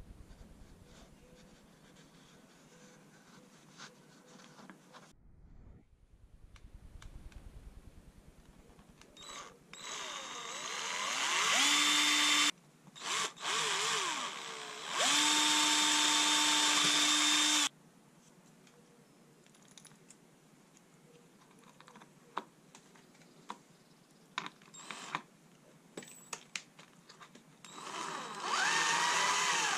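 Cordless drill running in several bursts. It spins up with a rising whine into a steady run of about two seconds, gives a few short stabs, then runs steadily for about three seconds while drilling into plywood. Near the end a shorter burst rises in pitch as it drives in a screw.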